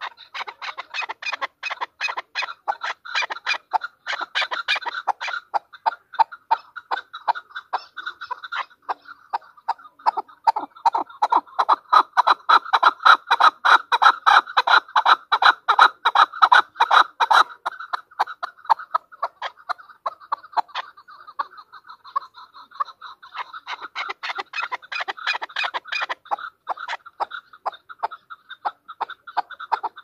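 Chukar partridge calling: a long run of rapid, repeated clucking notes, several a second. The notes grow loudest about a third of the way in, then ease off.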